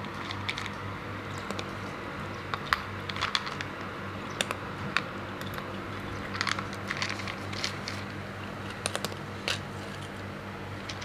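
Domestic cat eating from a plastic tub: irregular small clicks and crunches of chewing, over a steady low hum.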